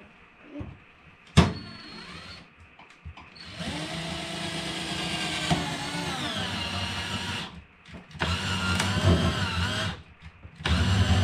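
Cordless drill running in three bursts, a long one of about four seconds and then two shorter ones, its pitch dipping and recovering as it drills up into the cabinet board. A sharp click comes just before, over a second in.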